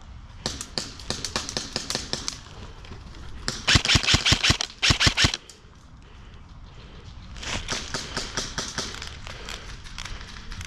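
Airsoft rifles firing in three runs of rapid shots, the loudest and closest run in the middle.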